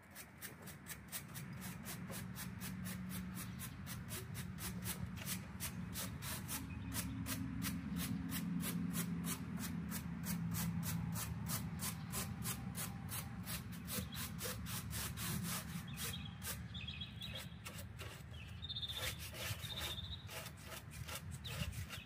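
Rhythmic hand rubbing or scrubbing strokes on a surface, back and forth about three times a second, over a steady low hum.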